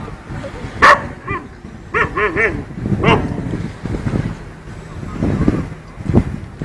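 A dog barking at a cat in separate short barks: one sharp bark about a second in, a quick run of three short, higher barks about two seconds in, then another bark and a last one near the end.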